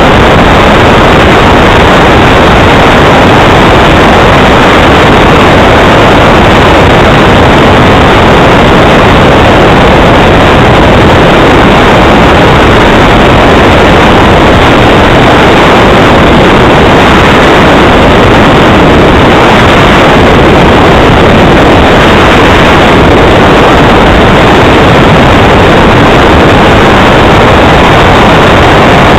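Radio-controlled model Tornado jet's engine running steadily, very loud and distorted, a dense rushing noise with no clear pitch.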